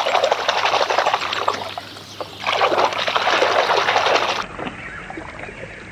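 Water splashing and sloshing as a hand swishes a toy around in a plastic basin of water, in two spells with a short lull about two seconds in. After about four seconds it gives way to a quieter background.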